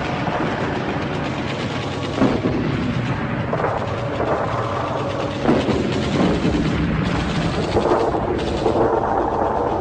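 Sound of battle: a continuous rattle of gunfire and artillery, with louder blasts about two, five and a half and eight seconds in.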